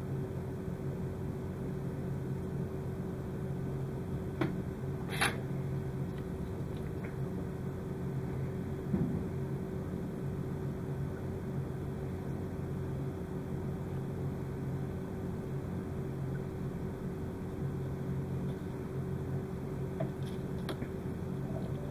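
Steady low background hum with a few light clicks and ticks from small wire-lead components being handled on the workbench.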